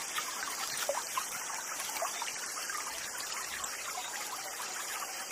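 Steady outdoor background hiss, water-like, with a few faint small ticks and chirps.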